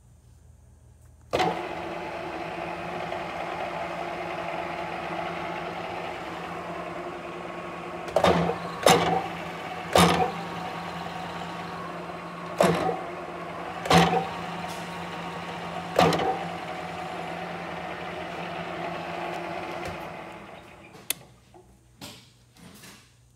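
Alzmetall pillar drill's electric motor switched on: it starts suddenly about a second in, runs with a steady hum, and runs down near the end. Six loud, sharp knocks sound while it is running.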